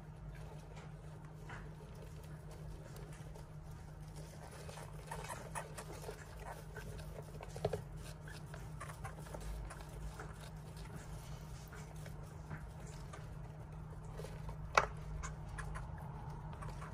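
Dwarf hamsters scurrying and rummaging in wood-shaving bedding: faint rustling and scratching with scattered small clicks and taps, one sharper click about 15 seconds in, over a steady low hum.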